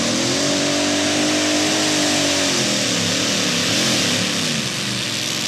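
A modified pulling tractor's engine at full throttle, dragging a weight-transfer sled down the track. The engine note climbs in the first half-second, holds high, then wavers up and down in pitch.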